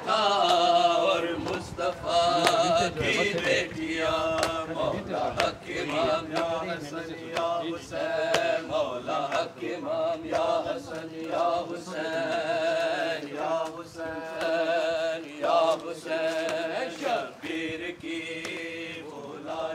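A male voice chanting a noha, an Urdu Muharram lament, in long melismatic phrases with a wavering vibrato, over a steady held drone.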